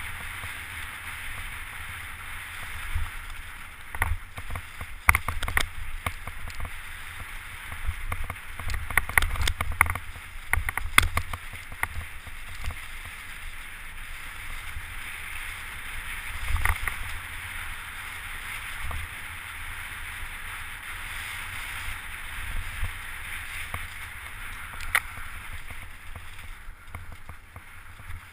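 Mountain bike riding fast down a leaf-covered dirt trail: a steady rush of tyre noise and wind buffeting the microphone, broken by clattering knocks and rattles as the bike hits bumps, thickest between about four and twelve seconds in.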